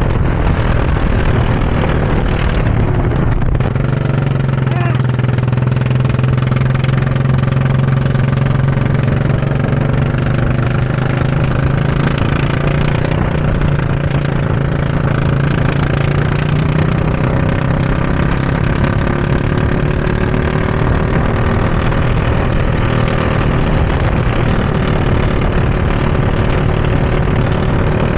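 Go-kart engine running hard, heard from the driver's seat. Its pitch dips and climbs again a few seconds in, holds fairly steady, then rises gradually in the second half as the kart brakes and accelerates through the lap.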